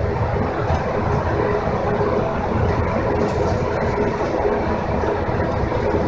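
Cabin running noise of a BART Oakland Airport Connector car, a cable-hauled people mover, moving along its elevated guideway: a steady rumble with a faint hum.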